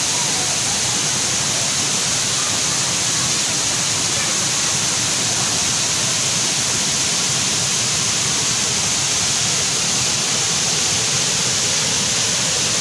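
Waterfall of 10 to 15 metres pouring from limestone rock, a steady, unbroken rush of falling water.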